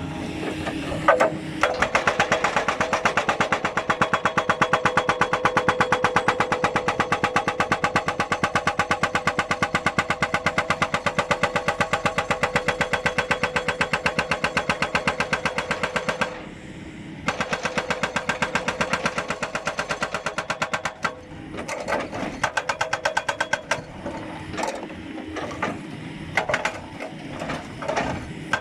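Doosan excavator's hydraulic breaker hammering in a rapid, steady stream of blows. It stops briefly about halfway through, resumes, and then works in short bursts near the end.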